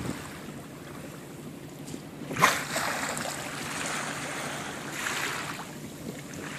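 Seawater rushing and splashing along the hull of a moving sailing boat, with one sudden sharp splash about two and a half seconds in.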